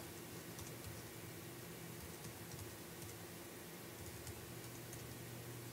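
Faint typing on a computer keyboard: scattered, irregular key clicks over a steady low hum.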